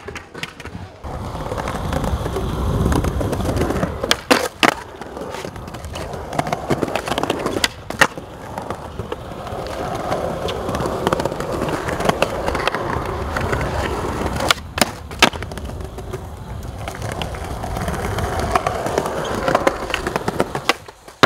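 Skateboard wheels rolling steadily over smooth concrete, with several sharp clacks of the board against the ground, two of them coming in quick pairs.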